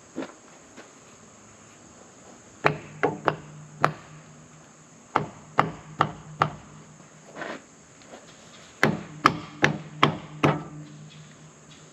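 Hammer blows on a sawmill job, in three runs of four or five strikes about two to three a second, each run leaving a low ringing hum.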